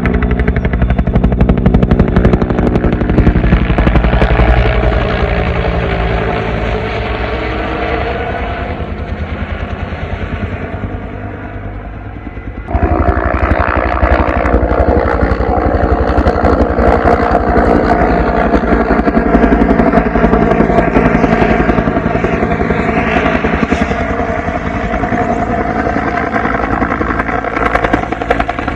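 Military helicopter's rotor chop and turbine, loud and continuous. It fades gradually with a falling pitch, then cuts back abruptly to full loudness about halfway through.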